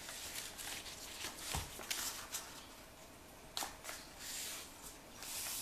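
A square sheet of paper rustling and crinkling as it is folded and creased by hand, with a few soft taps and brushes of the paper and hands against the surface.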